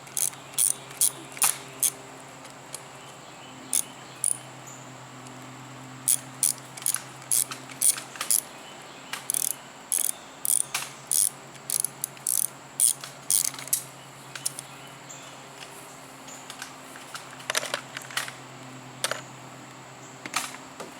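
Ratchet wrench clicking in short, irregular runs as bolts on a lawn mower's air filter cover are loosened.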